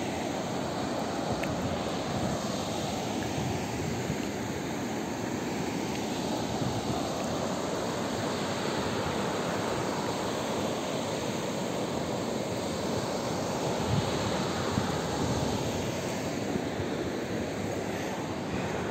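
Steady rush of a shallow mountain river running fast over a stony bed and small rapids.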